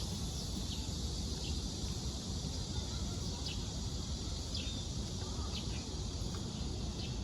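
Steady outdoor background noise with faint, short chirps now and then, about one every second or so.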